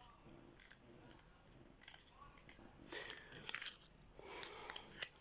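Faint clicks and rustles of hands handling a Kinder Surprise egg and its small plastic toy capsule, growing busier about two seconds in.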